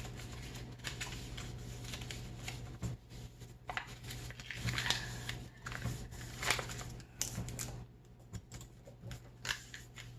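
A sheet of ordinary printer paper being folded and creased by hand into an origami bird base, giving irregular short rustles and crinkles.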